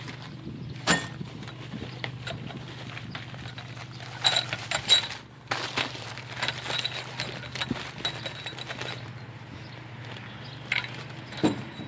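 Kraft paper wrapping rustling and crinkling as steel press parts are unwrapped and handled, with sharp metal clinks. About four seconds in comes a cluster of clinks with a brief ringing. A steady low hum runs underneath.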